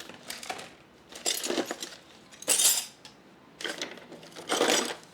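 Metal hand tools clinking and clattering as they are rummaged through, in a few separate bursts with pauses between.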